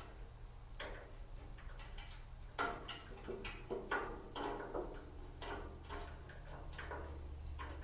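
Stubby screwdriver tightening a screw on a metal griddle-shelf bracket: a string of small, irregular clicks and ticks as the screw is turned down.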